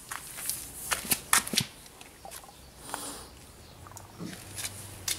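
Scattered light clicks and scuffs of sandalled footsteps on gritty concrete, several close together about a second in and a few more near the end.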